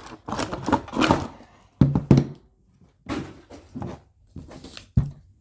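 Handling noise from a King Kong action figure and its packaging being worked free: irregular rustling and clicks with a few sharper knocks, the loudest about two seconds in and again near the end.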